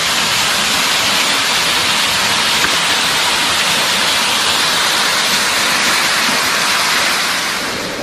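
Waterfall's water rushing steadily: a dense, even hiss that eases slightly near the end.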